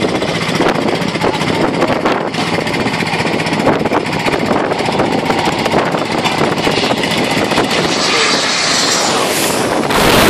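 Gulfstream G550 business jet on landing approach, its Rolls-Royce BR710 turbofans making a steady jet rush that grows louder and brighter near the end as the jet comes in low over the runway.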